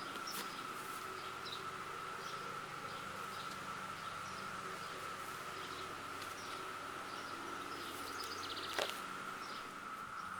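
Chorus of Brood II 17-year periodical cicadas: a steady, unbroken drone of many males calling to attract females. Scattered bird chirps sound over it, and a single sharp click comes about nine seconds in.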